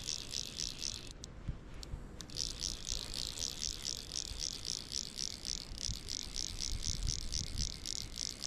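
Fly reel being wound in quickly while playing a trout, each turn of the handle giving a short ratcheting whirr, about four or five a second. The winding stops for about a second, with a few clicks, then resumes steadily.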